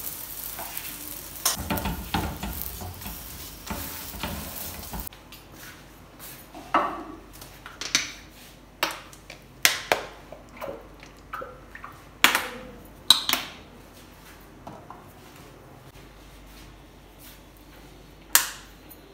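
Paratha sizzling on a hot iron tawa, with a slotted spatula scraping and pressing it. The sizzle then stops abruptly, followed by scattered clinks and knocks of a frying pan, a plastic oil bottle and a spoon being handled, with one sharp tap near the end.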